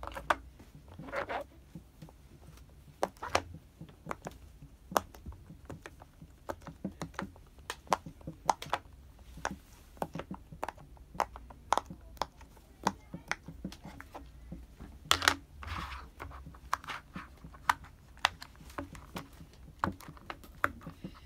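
Silicone pop-it fidget toy bubbles pressed in one by one with the fingers, each giving a short sharp pop, a few a second at an uneven pace. The loudest pops come about fifteen seconds in.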